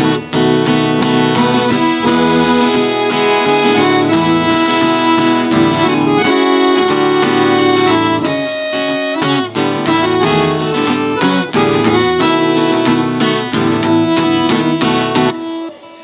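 Instrumental introduction of a sertanejo song: accordion and guitar playing over a steady drum beat, with a brief break near the end just before the vocals come in.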